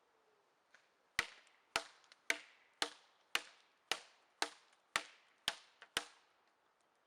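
Airsoft electric MP5 firing single shots: about ten sharp cracks, roughly two a second, with a few fainter ticks in between.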